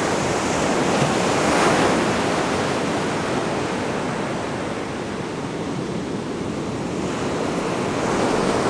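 Ocean surf breaking and washing up the beach, a steady rush of waves that swells a little about a second and a half in.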